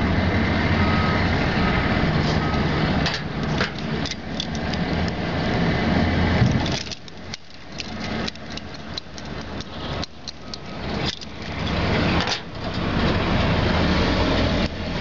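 Motor vehicle engine running close by, loud and steady with a low hum, dropping away about halfway through and loud again from about twelve seconds in. While it is quieter, small clicks of a crimp tool being handled on a coax connector come through.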